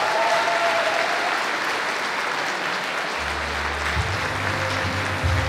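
An audience applauding, with a few voices over the clapping at the start. A song with a low bass line comes in just past three seconds.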